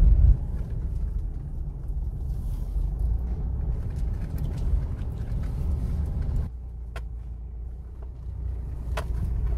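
Mitsubishi Pajero heard from inside the cabin while driving slowly along a slippery wet dirt track: a steady low rumble of engine and tyres, dropping quieter about two-thirds through, with two sharp clicks near the end.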